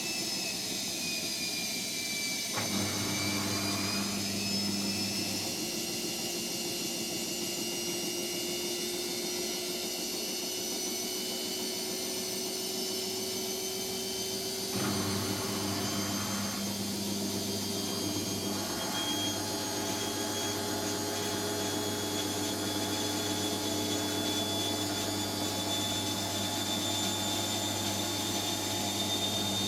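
Hotpoint Extra WMXTF742K washing machine running, its motor giving a steady high whine, with a lower hum that cuts in about two and a half seconds in and again about halfway through.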